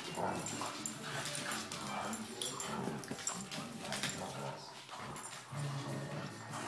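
A German shepherd and a bulldog play-fighting: a continuous run of low growls and grunts mixed with whining.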